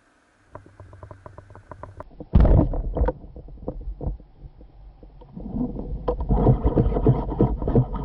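Water splashing and sloshing close to the microphone. There is a loud splash about two seconds in, then choppy, crackling water noise from about five seconds in.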